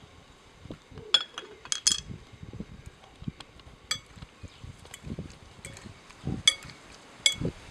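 Two metal forks stirring cherries in a glass bowl, clinking sharply against the glass about six times, with softer stirring sounds in between.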